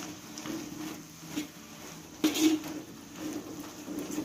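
Metal spatula scraping and stirring thick spice paste around a wok in irregular strokes, with one louder scrape about two seconds in. The paste is being dry-fried without oil, cooking off its water.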